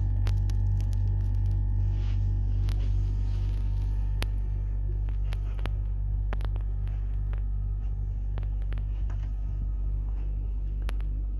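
Steady low hum with a few faint clicks scattered through it.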